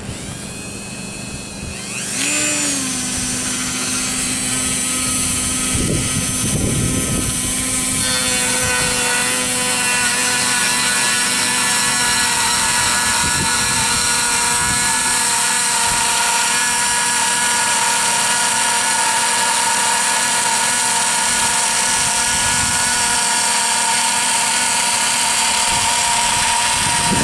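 Dremel rotary tool with a small cut-off wheel speeding up about two seconds in, then running steadily as the wheel cuts along a line in an agave stalk. Its whine is loud and even, with a slight change in tone around eight seconds in as the wheel bites.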